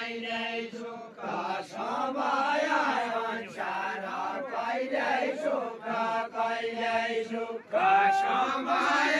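A group of men singing a Deuda folk song together in a chant-like melody, many voices at once, with no instruments heard. Near the end a louder voice comes in on a held high note.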